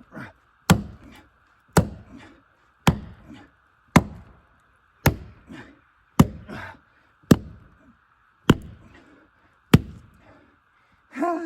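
A tool chopping into a tree root in the ground, nine hard strikes at a steady pace of about one a second.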